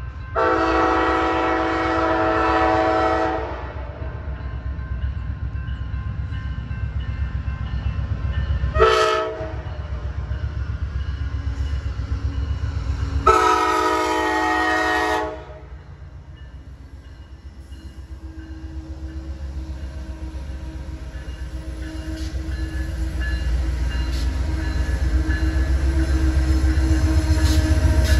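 Amtrak passenger train's locomotive horn sounding a chord in three blasts: a long one, a short one about nine seconds in, and another long one about thirteen seconds in, the crossing signal as the train nears the grade crossing. Under it runs the low rumble of the train, growing louder near the end as the cars roll past.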